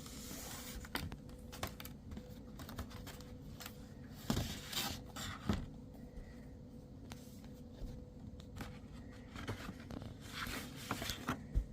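Packaging of an iPhone 17 Pro Max box being handled and opened: small clicks and scrapes with short bursts of tearing and rustling, loudest about four to five seconds in and again near the end.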